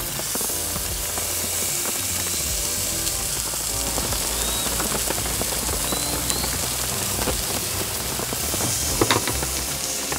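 Slices of marbled beef sizzling on a Feuerhand Tamber tabletop grill, a steady hiss with a louder crackle about nine seconds in, over background music.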